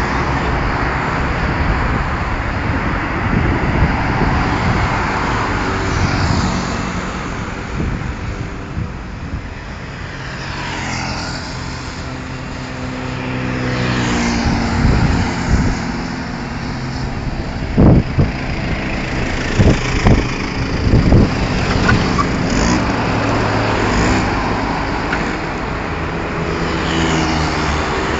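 Road traffic on a multi-lane highway: a steady rumble of tyres and engines with cars swelling past one after another, one with a falling pitch as it goes by. A few brief thumps come close together past the middle.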